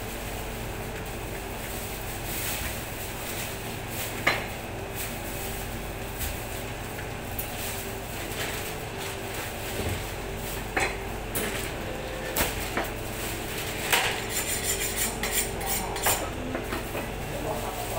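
Butcher's knife clinking and knocking against bone and the cutting board while pork is being boned. Near the end comes a quick run of metal strokes, the knife being honed on a sharpening steel. A steady machine hum runs underneath.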